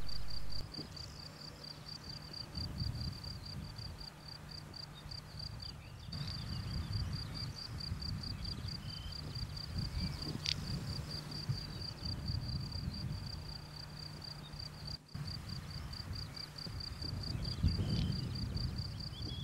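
A cricket chirping steadily at an even pace, about three chirps a second, over a low rumble of wind. A single short sharp sound comes about ten seconds in.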